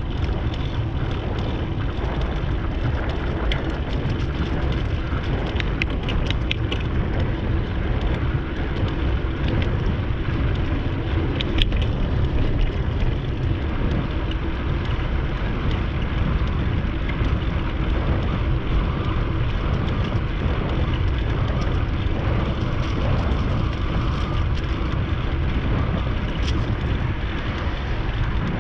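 Steady low rumble of wind buffeting the microphone of a camera riding on a moving bicycle, with a few light clicks or rattles in the first half.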